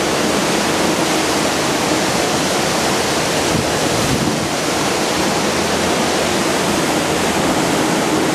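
Steady, loud rushing of wind and sea water past a cruise ship under way.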